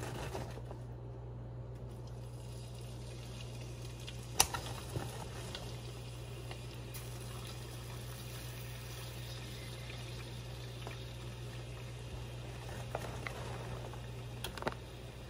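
Olive oil sizzling quietly and steadily in a skillet as handfuls of fresh spinach leaves are dropped in, over a constant low hum. A couple of sharp clicks come about four seconds in and near the end.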